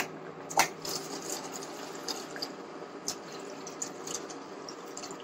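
Coconut milk being poured into a cooking pot of thick rice-and-leaf mixture: a steady pouring sound with a few light clicks.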